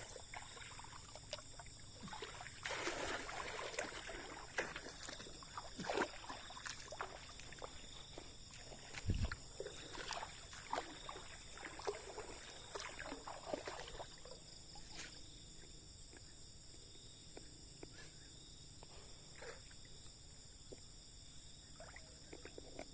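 Irregular splashes and knocks in water, busiest in the first half and thinning out after about fourteen seconds, over a steady high chorus of night insects.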